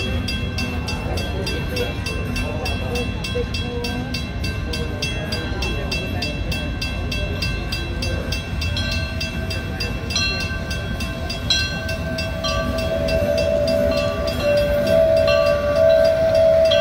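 A wig-wag railroad crossing signal's bell rings in rapid, even strokes. From about nine seconds in, a steam locomotive's whistle blows in several long blasts, louder toward the end as the train reaches the crossing.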